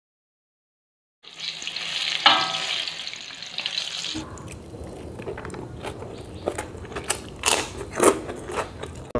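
Silent for about the first second, then a hiss for a few seconds. From about four seconds in come the small, irregular clicks and smacks of eating rice and fried food with the fingers from a plate, with chewing.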